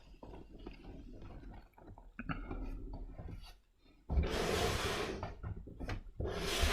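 Cardboard laptop box being handled: faint small knocks and shuffles, then two long rubbing, scraping noises of cardboard in the second half.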